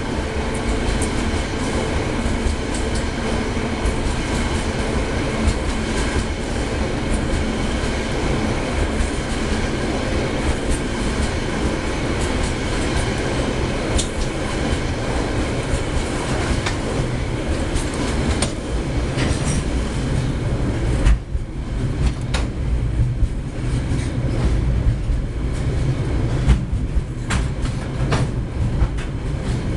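Container wagons of a freight train rolling past close by: a steady rumble with wheels clacking over the rail joints. About two-thirds of the way through, the higher hiss and ringing drop away, leaving a deeper rumble.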